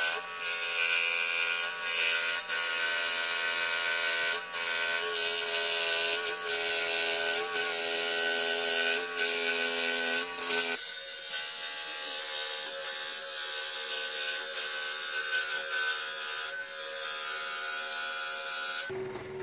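Hegner scroll saw running at mid-range speed, its jeweler's metal-cutting blade sawing slowly through thin mild steel (about 20 gauge) backed with MDF: a steady buzzing hum with a few brief dips. About eleven seconds in the lower part of the hum drops away, and near the end the sound cuts off suddenly.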